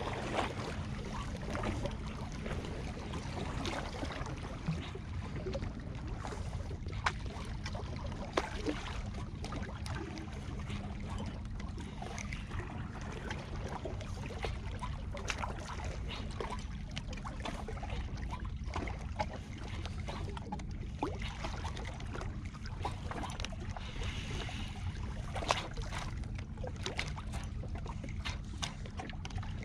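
Steady low rumble of wind and lake water at a rocky shore, with scattered light clicks and ticks.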